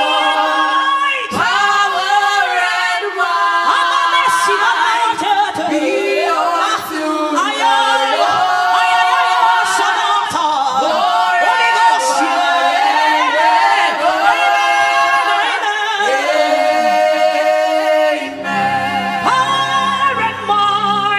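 Unaccompanied gospel worship singing: held, sliding sung notes with voices in harmony. Low instrumental notes come in near the end.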